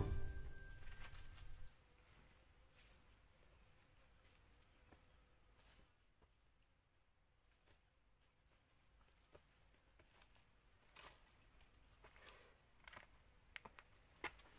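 Background music fades out in the first couple of seconds, leaving insects trilling faintly and steadily, with a few scattered soft clicks.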